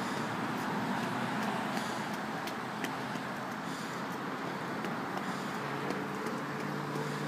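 Steady traffic noise with a low, even engine-like hum, and a few faint light ticks.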